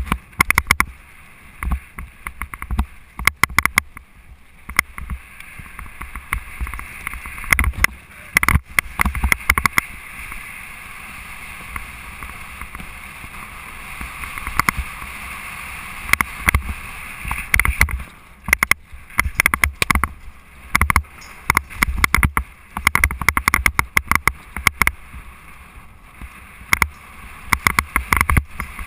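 Mountain bike rolling fast down a rough dirt trail, heard close up from the rider's own bike: rattling and clattering over bumps with rushing wind and tyre noise. There is a smoother, steadier stretch in the middle before the clatter picks up again.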